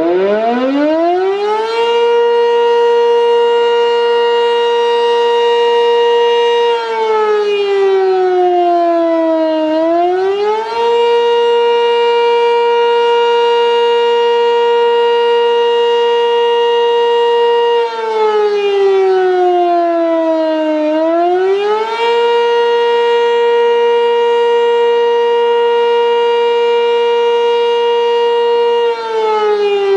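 Sentry 10V electromechanical outdoor warning siren winding up in the first two seconds to a loud steady tone, then repeatedly sliding down in pitch for about three seconds and swinging quickly back up, holding the top pitch about seven seconds between dips. This rising-and-falling wail is the Attack signal.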